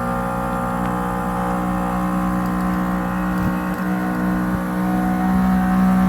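Senville Leto 24K mini split with a failing compressor, running: a steady hum with a strong low tone and a stack of higher tones, slowly growing louder.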